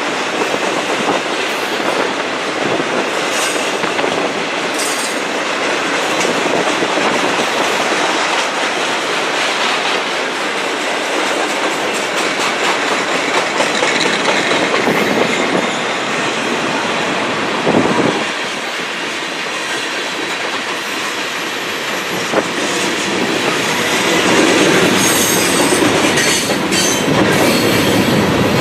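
Freight train's cars rolling past at close range: a steady rumble of steel wheels on rail with clickety-clack over the rail joints. A sharp thump comes about two-thirds through, and high wheel squeal rises near the end as the tank cars pass.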